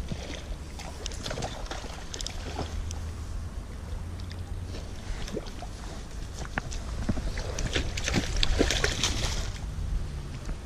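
Hands handling a baitcasting reel and its line: scattered small clicks and rustles over a low steady rumble, with a louder rustle about eight to nine and a half seconds in.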